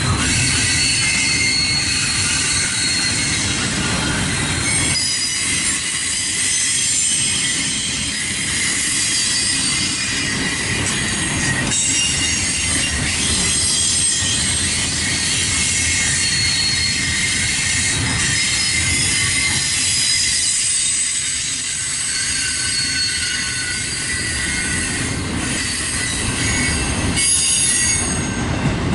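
Double-stack intermodal well cars rolling past: a steady rumble of steel wheels on rail, with high-pitched wheel squeal ringing over it.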